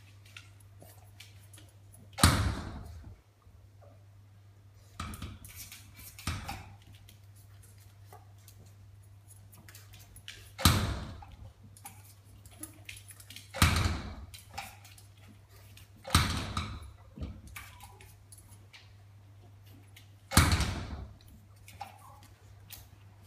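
A glass door knocking and rattling in its frame as a French bulldog pushes at it, trying to open it: about seven sharp knocks a few seconds apart, each with a short rattle.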